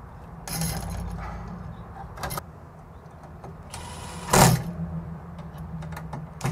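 DeWalt 12V brushless cordless impact driver running in short bursts, the loudest about four and a half seconds in, driving the screws that fasten a metal light-fixture crossbar to an electrical box.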